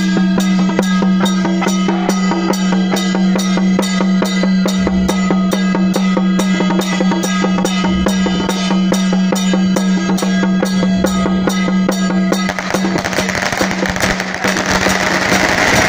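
Taiwanese temple procession percussion: hand cymbals, a hand-held gong and a small drum in a carved wooden frame, struck in a steady beat of about three strokes a second over a steady ringing tone. About three-quarters of the way through, a dense crackling noise swells up over the beat and carries on almost to the end.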